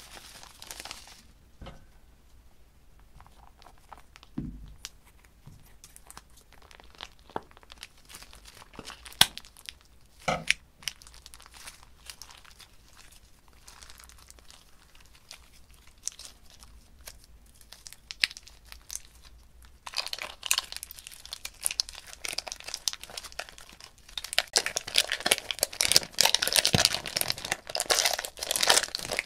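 Foam beads pouring briefly from a plastic bag, then hands squeezing and stretching slime with faint sticky clicks and a few louder pops. About two-thirds of the way in it turns into dense, loud crinkling and crackling as the slime is kneaded.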